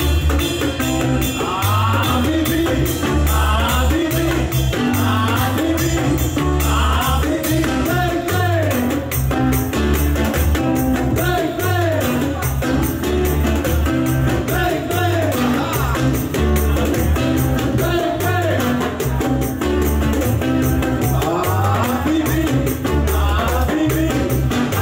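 Live Latin band music: acoustic guitar, electric bass and hand drums playing a steady rhythm, with a man singing the melody over them.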